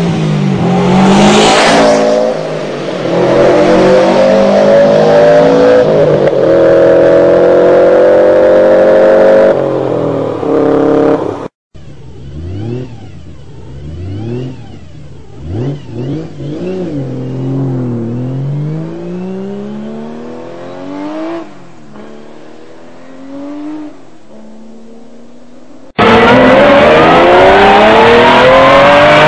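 Car engines revving hard in three separate clips. First an engine accelerates with its pitch climbing and dropping at gear changes. After an abrupt cut about eleven seconds in comes a quieter engine blipped up and down several times, and near the end another loud engine accelerates with rising pitch.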